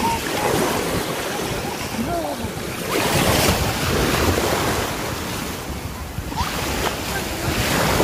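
Shallow sea waves washing and water splashing around a person's legs as he wades, with wind buffeting the microphone. A few brief faint vocal sounds come through.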